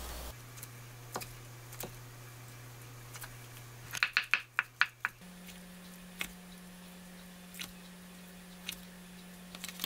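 Kitchen knife slicing through a soft block of buckwheat jelly and tapping the wooden cutting board. There are a few single taps, then a quick run of chops lasting about a second, about four seconds in.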